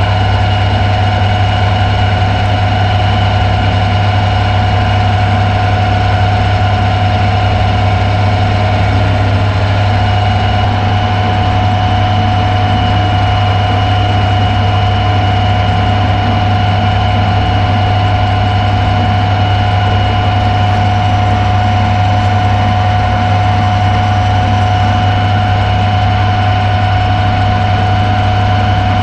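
Metal lathe running at a steady speed: a constant low motor and gear hum with a steady high whine over it.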